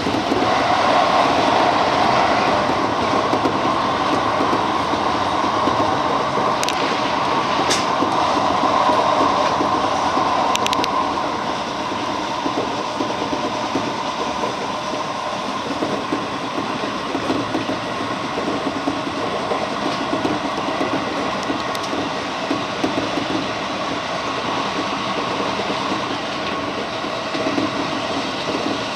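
JR 205-series electric commuter train running between stations, heard from inside the car: a steady rumble of wheels on rail with a few sharp clicks, easing a little about eleven seconds in.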